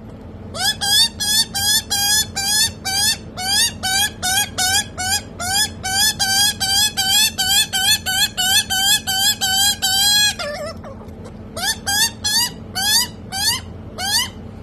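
Young Australian magpie's begging calls: a fast run of short, rising squawks, about three a second, breaking off for a moment about ten seconds in and then starting again more slowly.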